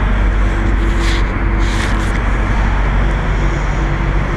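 Semi-truck diesel engine idling nearby, a steady low rumble, with two short hisses about one and two seconds in.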